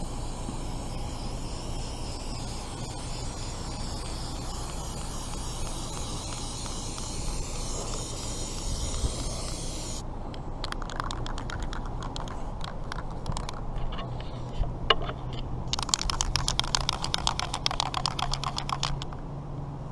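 Aerosol can of Flex Seal liquid rubber sealant spraying, hissing and spitting in quick crackling runs. The longest and loudest run comes near the end.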